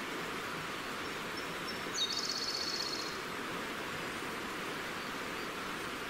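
A fast-flowing stream rushing steadily. About two seconds in, a small songbird gives a short, rapid high trill lasting about a second, led in by a few faint high notes.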